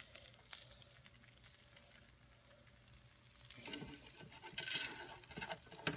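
Quesadilla frying in butter in a hot skillet, a faint steady sizzle, with soft pattering as diced tomato, onion and cilantro are dropped onto the tortilla by hand. The pattering gets busier a little past halfway.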